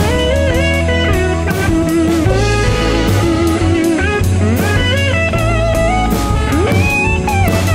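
Blues-rock backing track with an electric guitar solo whose notes glide up and down between pitches over a steady bass line, with a Pearl drum kit played along with sticks, its drum and cymbal strokes on the beat.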